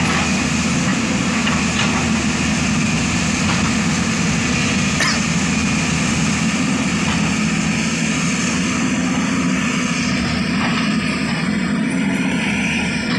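Diesel engine of an earthmoving machine running steadily, with a single brief click about five seconds in.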